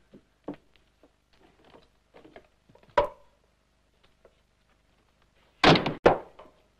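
Small objects being handled: scattered soft clicks and knocks, a sharp knock with a short ring about three seconds in, then a louder, noisy rattle lasting about half a second near the end as a box is handled.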